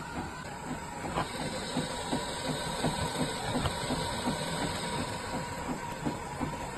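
Fully automatic espresso machine running, with a steady hiss and a regular clatter of about four ticks a second.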